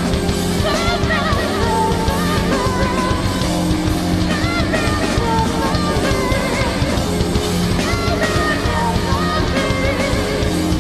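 Rock band playing loud, heavy music led by electric guitar, with a wavering high melodic line over a dense, steady backing.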